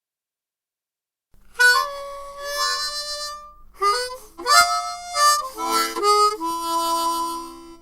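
Harmonica playing a short riff of chords and single notes. It starts about a second and a half in, in several quick phrases with short breaks, and ends on a held chord.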